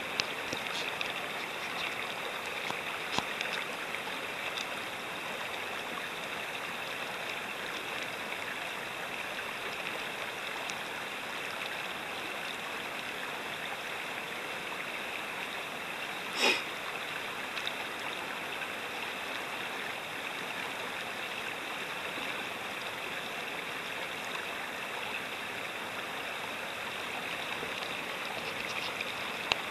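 Shallow river rapids rushing steadily. There is a single short knock about halfway through.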